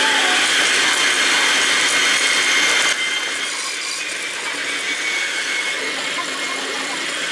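Electric hand mixer running steadily, its beaters whisking eggs into creamed butter and sugar for cookie dough; it gets quieter about three seconds in.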